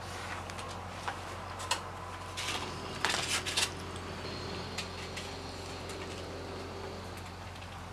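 Knife and fork clinking and scraping against a plate: a few scattered clicks, then a cluster of louder scrapes about three seconds in, over a steady low hum.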